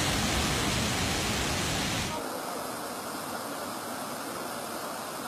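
Rushing floodwater: a river in spate making a loud, even roar, which drops abruptly to a quieter, thinner rush without its deep rumble about two seconds in.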